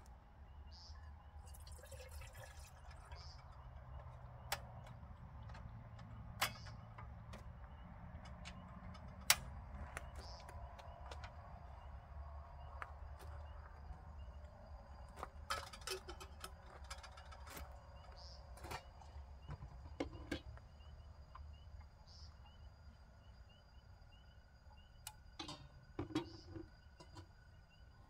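Scattered light clicks, taps and knocks of small objects being handled at the back of a car, over a steady low hum, with faint short high chirps recurring every couple of seconds.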